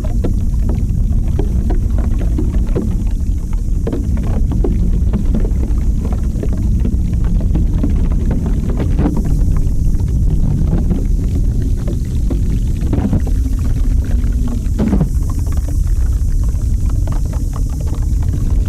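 ASMR spray-trigger sounds on a close microphone: a steady low rumble with soft crackles and a few short low sliding tones, about fifteen seconds in. No sharp spray hiss stands out.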